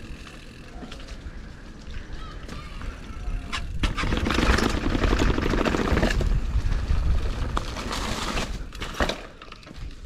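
Mountain bike riding noise on an action camera: wind rumbling on the microphone with tyre and road noise, growing much louder from about four seconds in until about nine seconds, with a few sharp clicks.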